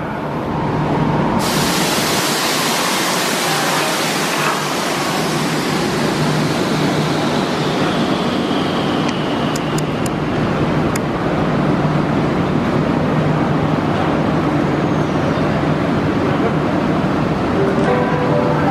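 KRL KfW i9000 electric multiple unit pulling into the platform and braking to a stop: loud running and brake noise with a hiss that starts sharply a second or so in, a faint whine falling slowly in pitch, and a low steady hum. A few sharp clicks come near the middle.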